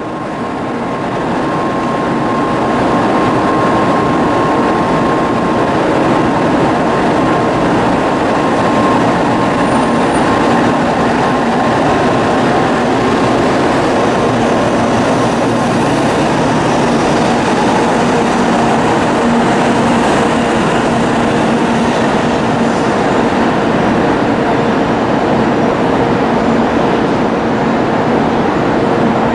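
N700-series Shinkansen train pulling out of the station and accelerating away, its passing cars making a loud steady running noise that builds over the first few seconds and then holds. A thin high tone sounds through the first several seconds.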